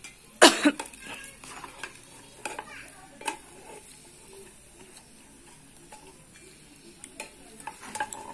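Metal ladle and slotted skimmer clinking and scraping in a small frying pan while food sizzles in hot oil; the loudest clink comes about half a second in, with scattered lighter knocks after.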